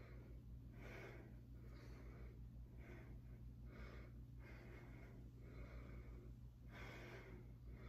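A woman breathing with exertion during a dumbbell set, faint, one breath about every second, over a low steady hum.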